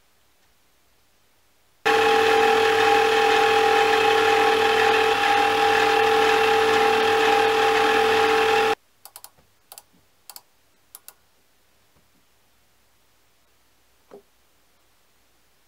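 Mini lathe running with a steady whine while turning a steel part, cutting in about two seconds in and cutting off abruptly some seven seconds later. A few light clicks follow.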